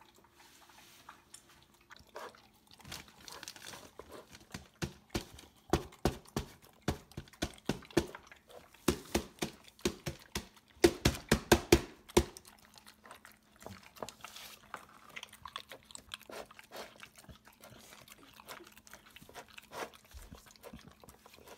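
Boxer dog eating from a plastic slow-feeder bowl: irregular crunching and chewing as it works the food out from between the bowl's raised ridges, loudest in a quick run of crunches about nine to twelve seconds in.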